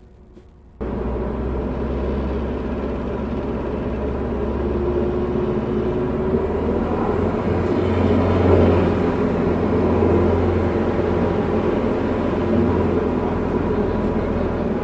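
Steady drone of the Diamond DA40's single piston engine and propeller heard inside the cabin on approach, starting abruptly after a near-silent first moment.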